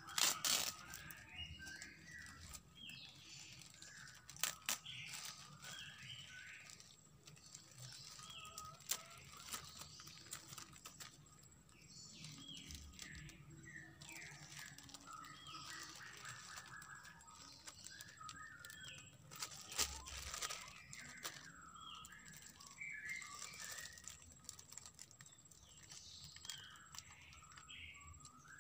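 Plastic grafting bags and wrap crinkling and tearing as they are pulled off the grafted bonsai branches, in scattered sharp rustles. Birds chirp in short repeated calls throughout.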